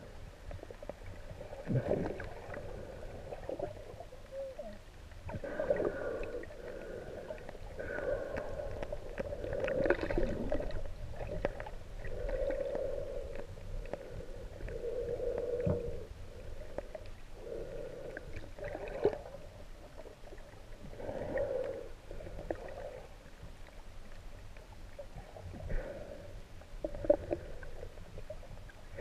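Muffled underwater sound from a camera held below the surface among swimmers: water swishing and gurgling from kicking and arm movements, with recurring dull hums and a few short knocks.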